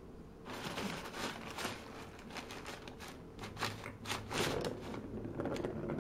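Brown kraft wrapping paper crinkling and rustling as a cat shifts and digs about in it inside a cardboard box: a quick run of short rustles that begins about half a second in.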